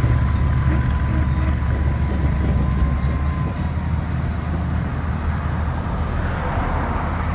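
Heavy construction machine's diesel engine running steadily with a deep rumble. A faint high whine fades out partway through.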